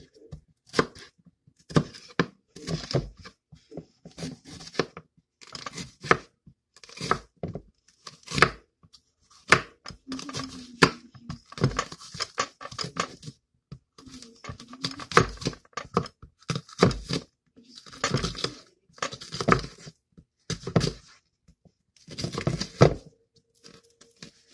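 Kitchen knife slicing green bell peppers on a plastic cutting board: crisp crunching cuts through the pepper flesh, each ending in a knock of the blade on the board, about one a second.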